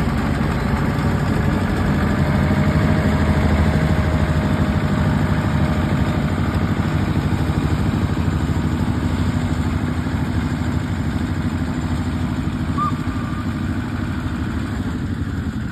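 Engine of a small narrow-gauge rail locomotive running steadily as it passes close by and draws away, loudest a few seconds in and slowly fading toward the end.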